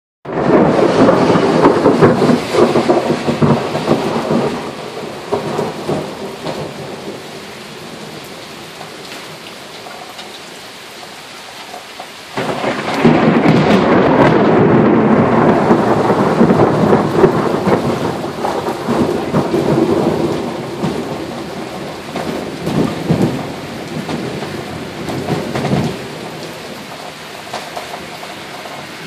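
Thunder over steady rain. A long roll at the start fades over several seconds. About twelve seconds in comes a sudden loud peal, which rolls on and slowly dies away in uneven swells.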